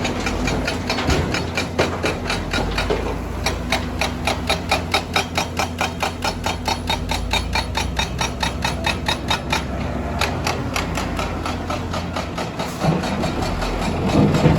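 Excavator-mounted hydraulic breaker hammering rock in rapid, even blows, about five to six a second, over the low, steady running of the machine's diesel engine.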